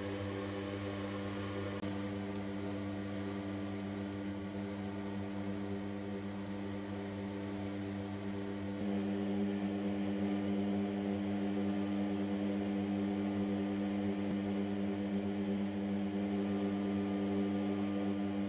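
A steady mechanical hum made of several even tones, with no rhythm or pitch change; it gets a little louder about nine seconds in.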